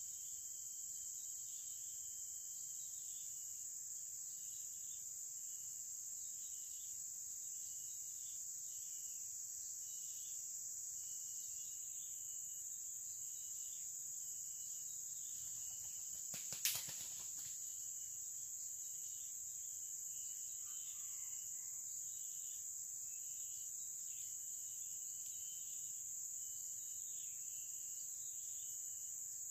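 Steady high-pitched drone of forest insects such as crickets or cicadas, with a run of short repeated chirps. One sharp click sounds about halfway through.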